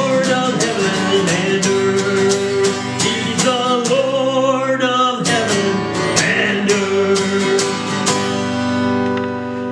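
A man singing while strumming an acoustic guitar in a steady rhythm; the strumming stops about eight seconds in and the song ends on a held last chord.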